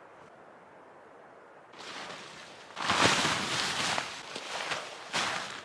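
Crinkling and rustling of a foil emergency (space) blanket being unfolded and handled, starting after a quiet opening and growing loud about three seconds in, in several bursts.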